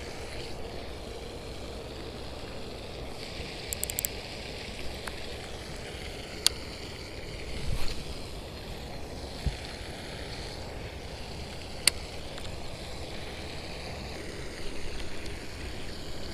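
Steady outdoor background noise with light wind on the microphone, broken by a few sharp clicks from handling a fishing rod and baitcasting reel: a quick cluster of clicks about four seconds in, then single clicks a couple of seconds later and again near the end.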